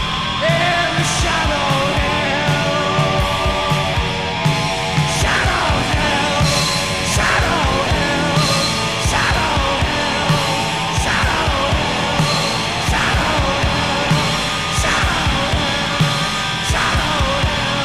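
Noise rock with industrial overtones: distorted guitar, bass and heavy drums in a steady beat. A high falling squeal comes back about every two seconds.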